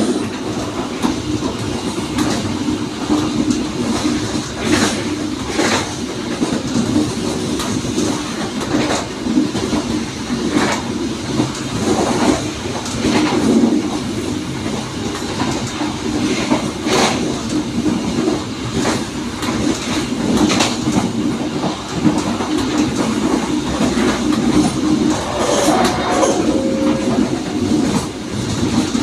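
Passenger train running along the line, heard from the rear of the train: a steady rumble with the wheels clacking over rail joints. A brief higher-pitched tone comes in near the end.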